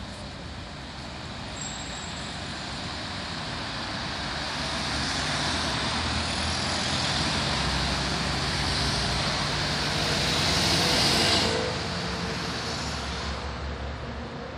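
Road traffic passing below on a multi-lane road, with a large truck approaching and passing close by. The noise swells for several seconds to a peak, then drops off sharply about three seconds before the end as the truck goes by.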